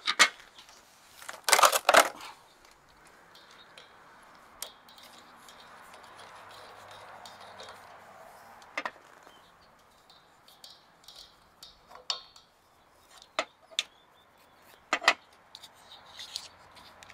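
Metal pipe fittings and a hand tool being handled and set down on a metal box: scattered sharp clinks and taps, with a louder cluster of clatter about two seconds in.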